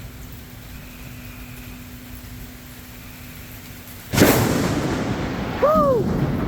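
Steady rain hiss, then about four seconds in a sudden sharp thunderclap from a close lightning strike that carries on as loud rumbling thunder.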